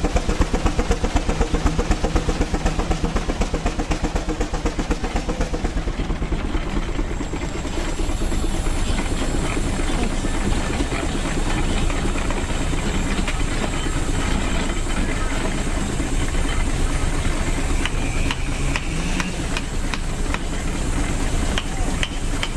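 Small steam traction engine lettered Geiser Mfg Co running as it is driven, its exhaust chuffing in a quick, even beat with steam hissing. About eight seconds in the beat fades into a steadier churn of steam engines running together.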